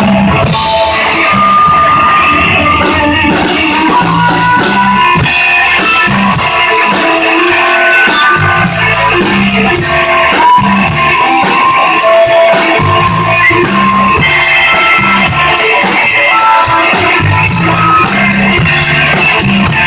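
Live rock band playing loudly, electric guitar over a steady drum-kit beat, in a passage without sung words.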